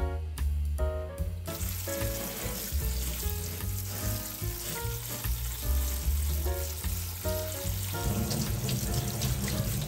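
Tap water running onto cooked fusilli in a stainless steel mesh colander, a steady spraying hiss that starts about a second and a half in as the pasta is rinsed. Background music with a strong bass line plays throughout.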